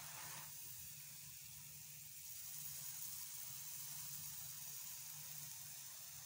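Faint, steady sizzling of a jowar-and-jaggery roti cooking on a hot iron tawa, with a brief louder sizzle at the start and a low steady hum underneath.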